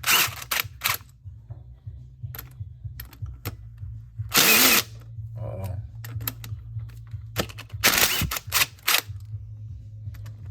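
Power impact gun spinning in short bursts as it runs out the 10 mm bolts holding the ignition coils on a Chevy Trailblazer's inline-six engine, with a longer run about four and a half seconds in. A steady low hum runs underneath.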